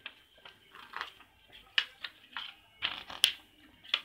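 Pages of a paper instruction booklet being flipped by hand: a quick, uneven series of crisp paper flicks and rustles, about eight in all, the sharpest a little under two seconds in and just past three seconds.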